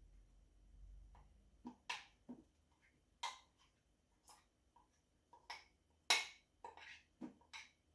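A spoon scraping and knocking against a bowl while thick fudge mixture is scooped out into a baking dish: a string of faint, irregular clicks and scrapes, the loudest about six seconds in.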